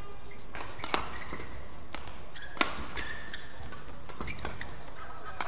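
Rackets striking a shuttlecock in a fast doubles rally: a string of sharp hits, the loudest about two and a half seconds in, with short squeaks of shoes on the court floor between them.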